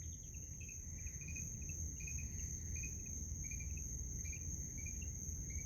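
Crickets chirping in short pulsed chirps, about two a second, over a steady high-pitched insect trill and a low background rumble.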